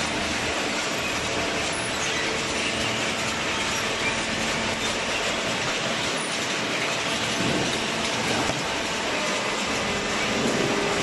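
Horizontal hydraulic cardboard baler running: a steady machine noise with faint held hums underneath and no clear strokes or pauses.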